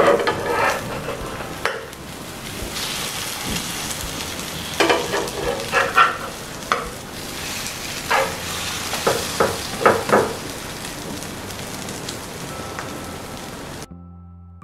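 Egg-coated noodle patties sizzling in oil on a flat nonstick pan, with a metal spatula scraping under them and flipping them over in a run of strokes through the middle. Soft music takes over just before the end.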